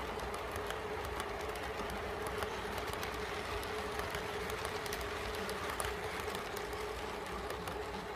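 Model freight cars rolling past on the layout track: a steady running hum with a constant tone and many small clicks from the wheels over the rail joints.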